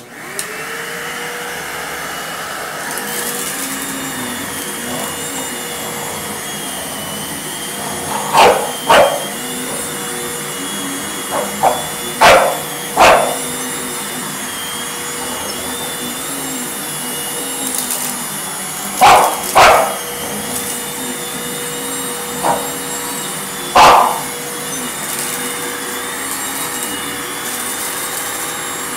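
A household vacuum cleaner switches on and runs with a steady whining drone. An English bulldog barks at it in short loud bursts, about ten in all, in a few clusters over the running motor.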